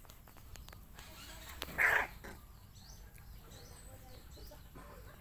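A puppy gives one short bark about two seconds in, over faint bird calls.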